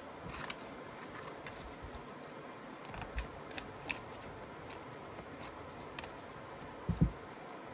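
Oracle cards being shuffled by hand: scattered soft flicks and snaps of cards sliding and riffling, with one dull thump about seven seconds in.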